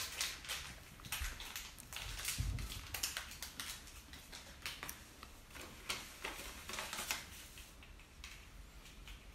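Small plastic toy pieces and packaging being handled: scattered light clicks and crinkles at an uneven pace, with a soft low bump about two and a half seconds in.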